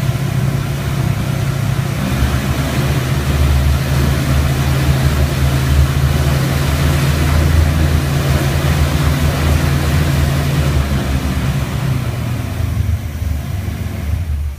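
Rotec R3600 nine-cylinder radial engine running steadily on a test dyno at part throttle. It grows louder about two seconds in and eases back near the end as the throttle lever is worked.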